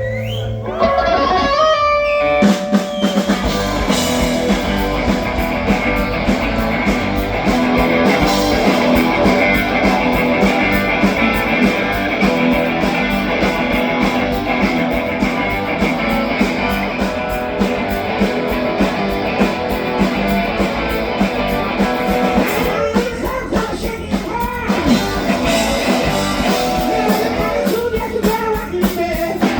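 Live rock band playing an instrumental stretch, electric guitar lead over drum kit and bass. It opens on a wavering held guitar note before the full band comes in about two seconds in.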